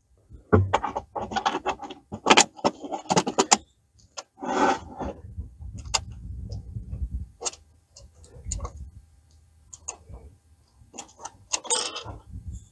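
Irregular clicking and ticking of hand tools and fasteners as the bolts of a front A-arm guard are worked in by hand, with dense clusters of clicks over the first few seconds, scattered clicks later and a low rumble through the middle.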